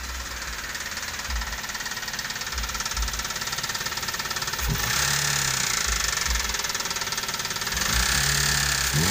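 A 2012 Toyota Avanza's DOHC 16-valve VVT-i petrol four-cylinder idling rough, with a steady diesel-like knocking clatter that gets louder about halfway through. The mechanic takes the knock for piston slap, the pistons hitting the cylinder walls, with the engine also running unevenly.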